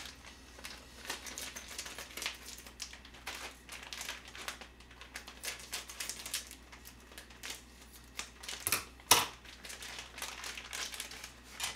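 Plastic packet of fresh jjolmyeon noodles crinkling and rustling as it is cut open with scissors and handled, with a single sharp knock about nine seconds in as the scissors are put down on the counter.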